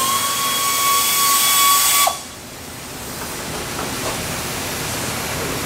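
Compressed air hissing from an air nozzle, with a thin steady whistle over the hiss, cutting off abruptly about two seconds in; a quieter, even shop background follows.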